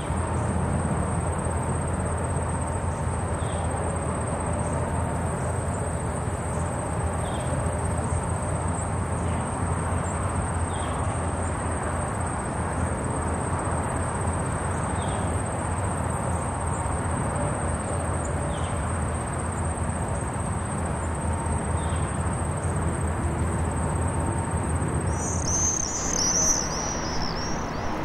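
Outdoor ambience: a low steady rumble under a continuous high-pitched insect buzz, with a short bird chirp repeating about every three to four seconds. Near the end the buzz stops and a bird sings a quick warbling phrase.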